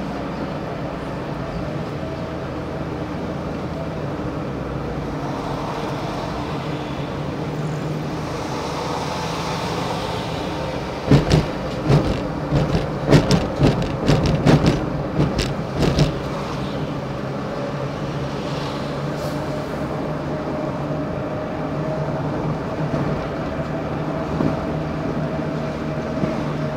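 Car driving, heard from inside: steady engine hum and road noise. Between about eleven and sixteen seconds in comes a run of sharp knocks and rattles.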